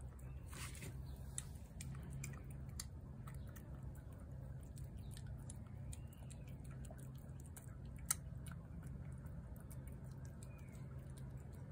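A cat chewing shredded wet meat from a plate, with many small irregular clicks of teeth and tongue and one sharper click about eight seconds in, over a steady low hum.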